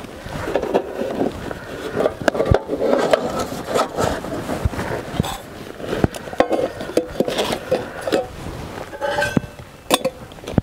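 Gear being handled and packed into a leather satchel: rustling, with scattered clicks and knocks throughout.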